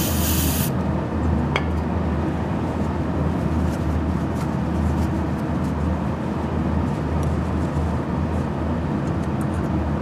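A short burst of aerosol spray, under a second long, at the start as a can is sprayed into the corroded float-valve tube of a refrigerator cooling unit to clean it out. A single click comes about a second and a half in, over a steady low hum that runs throughout.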